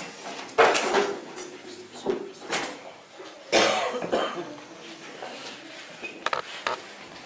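A person coughing, with two loud coughs about half a second and three and a half seconds in, and a couple of light clicks near the end.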